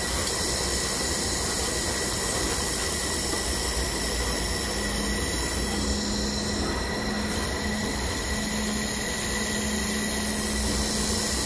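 Hand-held IPG LightWELD XR laser welder with its wire feeder running a continuous-wave weld on stainless exhaust tubing: a steady hiss with a faint high whine, and a low hum that comes in about four and a half seconds in.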